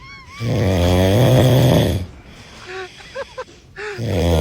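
A man snoring: two loud, rattling snores about a second and a half long each, the second starting near the end. Short, faint, squeaky whistles come on the breaths between them.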